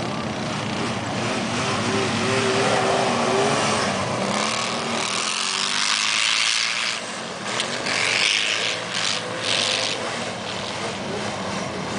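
A motor vehicle's engine running and revving, its pitch rising and falling, with a broad hiss of noise that swells in the middle.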